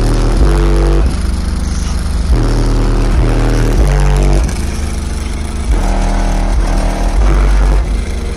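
Bass-heavy music played very loud through a car audio system of eight 18-inch Resilient Sound Platinum subwoofers in a 4th-order wall, powered by eight Taramps MD8000 amplifiers. It is heard from outside the truck: deep held bass notes change pitch about every half second to second.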